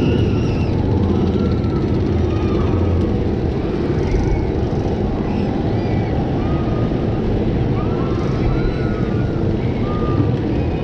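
Mack Rides spinning coaster car being hauled up the chain lift hill: the lift chain and track mechanism run with a steady, loud rumbling clatter. Short high rising-and-falling calls come and go over it.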